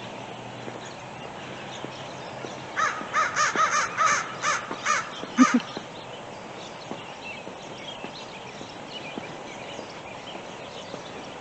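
American crows cawing: a quick run of about nine short caws starting about three seconds in and lasting two to three seconds, then only faint background with a few distant high chirps.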